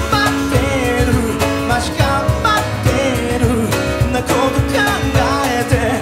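Live band music: a male lead vocalist singing over acoustic guitar, grand piano and drums.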